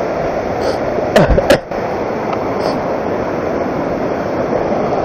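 Steady rushing of a fast mountain river's rocky rapids close by. Two loud knocks a little over a second in.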